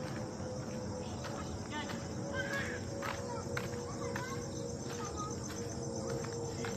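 Crickets chirping in a fast, even pulse, over a steady low hum.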